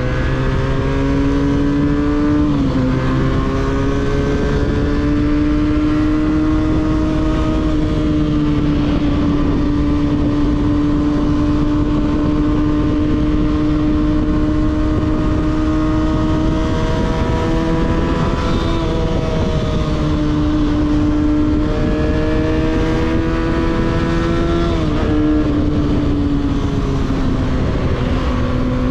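300cc motorcycle with a 302s exhaust running on board at a fairly steady cruise over a rush of wind. Its engine note holds mostly level, dropping sharply three times: once near the start and twice in the second half, each time after rising a little.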